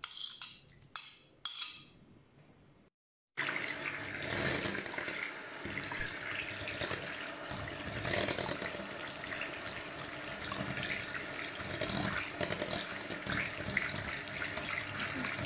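A few clinks of a spoon against a ceramic plate and bowl as butter is scraped in. Then, starting suddenly about three seconds in, an electric hand mixer runs steadily, its two metal beaters whisking butter, milk and egg in a ceramic bowl.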